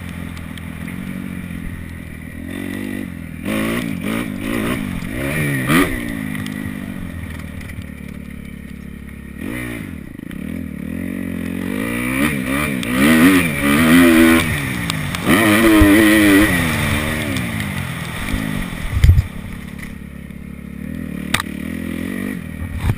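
Kawasaki KX250F single-cylinder four-stroke dirt bike engine being ridden, its pitch climbing and dropping again and again as the throttle is opened and closed through the gears. A short thump about nineteen seconds in.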